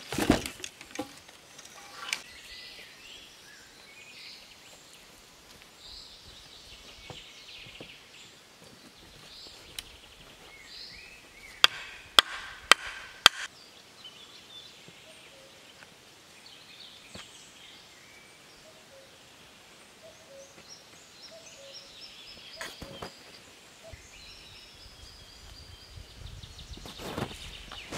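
Birds chirping in a quiet forest, with four sharp knocks in quick succession about halfway through. Near the end come rustling and thuds.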